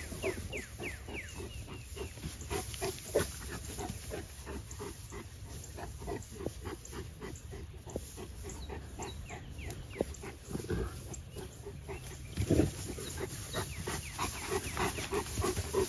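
Cane Corsos and a pit bull play-fighting: dog sounds over a dense run of short crackles as their paws scuffle in loose pine straw, with louder bursts about eleven and twelve and a half seconds in.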